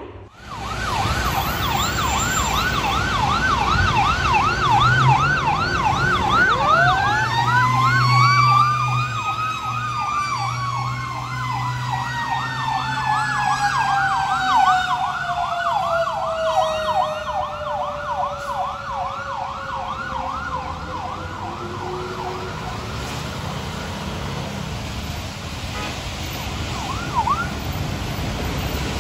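Fire apparatus sirens: an electronic siren on a fast yelp, joined a few seconds in by a Federal Q2B mechanical siren that winds up to a high wail and then slowly coasts down. Both fade out near the end, leaving passing road traffic.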